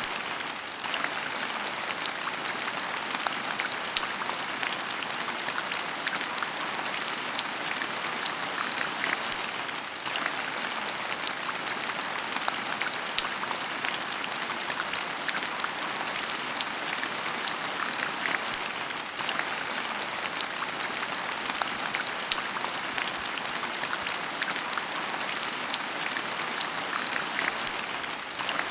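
Heavy rain falling steadily, with many sharp, separate drop hits close by over the constant hiss of the downpour.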